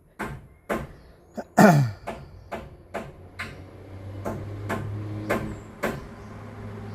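A run of sharp clicks, roughly two a second, with one loud falling sweep near the start. About halfway through, a steady low hum sets in and carries on under the clicks.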